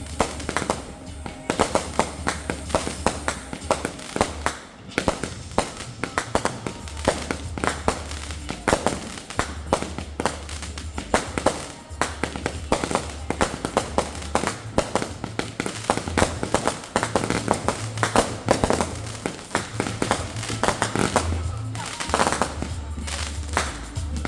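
Fireworks bursting in quick succession, many sharp bangs and crackles one after another, with music and its deep, stepping bass line playing underneath.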